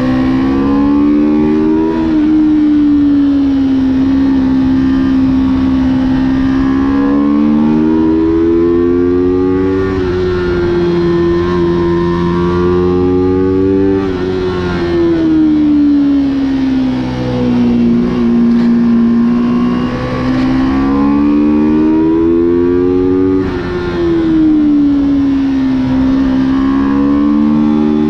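Motorcycle engine heard from onboard at track speed. Its pitch climbs steadily as it accelerates, drops sharply at gear changes, and sinks as it slows for the corners, several times over.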